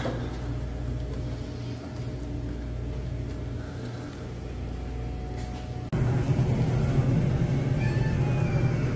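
A steady low machine hum, then about six seconds in a louder, rough motor running sound starts abruptly and keeps going.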